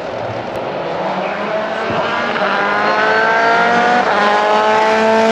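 Citroën DS3 WRC rally car's turbocharged 1.6-litre four-cylinder engine accelerating hard, its note rising through the revs, with a brief break for an upshift about four seconds in before it climbs again.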